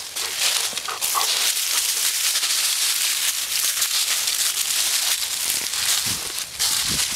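Dry fallen leaves rustling and crunching underfoot as a person and a large dog walk through thick leaf litter, a steady crackling hiss.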